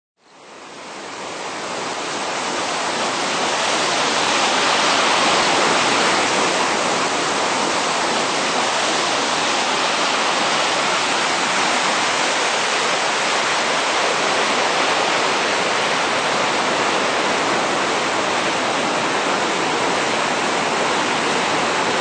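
Steady rush of a waterfall and whitewater rapids pouring over rock, fading in from silence over the first couple of seconds.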